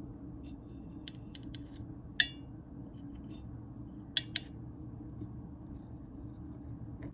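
Scattered short metallic clicks and snips of scissors and long tweezers working moss into a glass terrarium jar, over a faint steady low hum. The sharpest click, about two seconds in, rings briefly, and a close pair comes about four seconds in.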